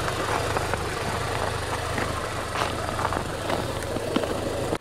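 A vehicle engine idling steadily, a low even rumble under constant background noise, with a few faint light clicks.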